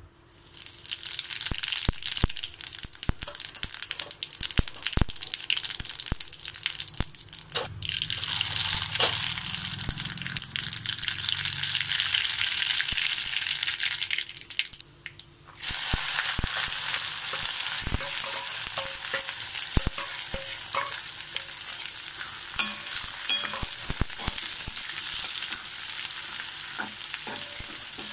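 Cumin seeds and whole spices sizzling in hot oil in an aluminium kadhai, with scattered clicks of a steel ladle against the pan. The sizzle starts as the seeds go in, breaks off for about a second halfway through, then comes back as strong as before. Near the end chopped onions are being stirred and fried.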